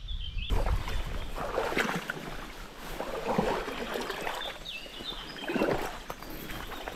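Someone wading through shallow river water: irregular splashing and sloshing that starts abruptly about half a second in.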